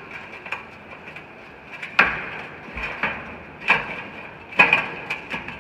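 Irregular metal knocks and clanks in a steel grain bin as its perforated floor sections are worked into place, each hit followed by a short ring; the loudest hits come about two seconds in and again near the middle.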